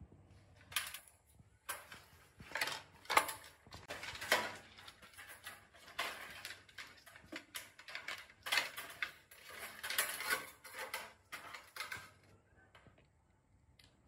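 Loose metal parts clinking and clattering as they are handled, a dense irregular run of sharp knocks and rattles that stops about two seconds before the end.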